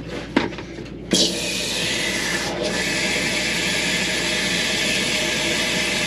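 Handheld shower head spraying water steadily onto laundry in a folding washing machine's tub, starting suddenly about a second in after a couple of handling clicks.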